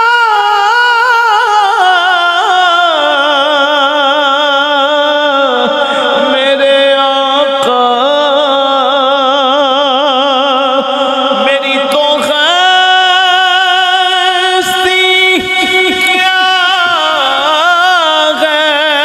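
A man's solo voice singing a naat, unaccompanied, in long held melismatic notes with a strong vibrato. The pitch steps down about two seconds in, climbs again about twelve seconds in, and falls near the end.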